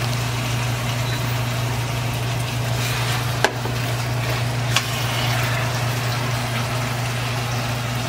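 A meat, cabbage and onion stir-fry sizzling steadily in a frying pan, over a steady low hum, with two light clicks about three and a half and five seconds in.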